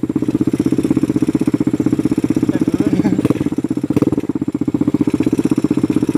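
Small quad ATV engine running steadily at low revs, a rapid, even pulse with no revving.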